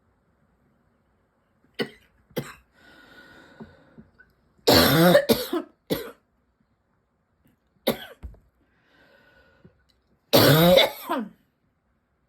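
A person with a persistent tickly cough coughing in several bouts: short sharp coughs, then harsh loud fits about halfway through and near the end. Between them come faint breaths with a thin whistle, and the last cough ends with the voice sliding down.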